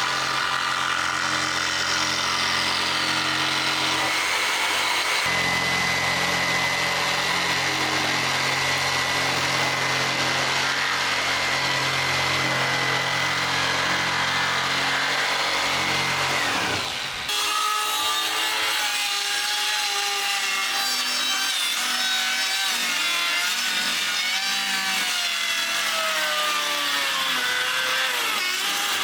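Jigsaw cutting plywood, its motor running steadily. About seventeen seconds in the sound changes abruptly, and after that the motor's pitch wavers up and down.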